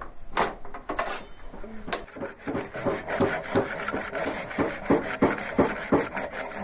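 Hand tool scraping and rasping the wood of a round timber log, in short repeated strokes that settle into about three a second from a couple of seconds in.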